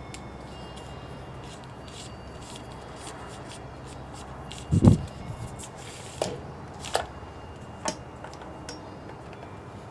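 PVC pipe and wire being handled on a table: a dull thump about five seconds in, then a few sharp clicks and knocks.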